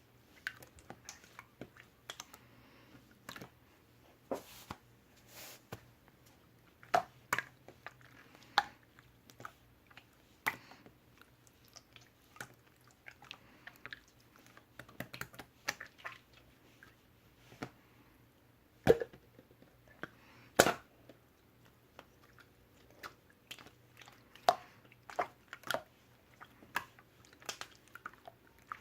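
Irregular sharp clicks and taps, a few a second at most with pauses between, some louder than the rest, over a faint steady hum.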